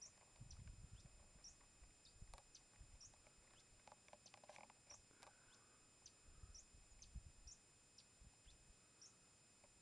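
Near silence outdoors: faint, short high chirps that dip in pitch repeat about once a second, with a few soft low rumbles.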